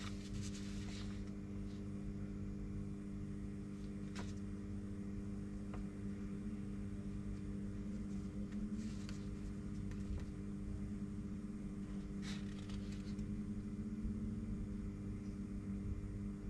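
Steady low electrical hum, with a few faint paper rustles as printed drawing sheets are handled.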